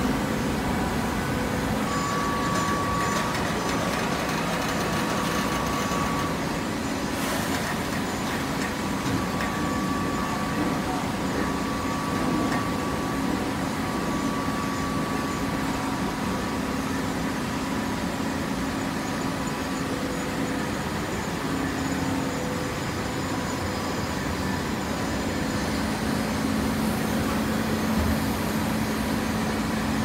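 Automatic horizontal hydraulic baler running: a steady industrial machine hum with a few held tones, one of them coming and going, and a single sharp knock about seven seconds in.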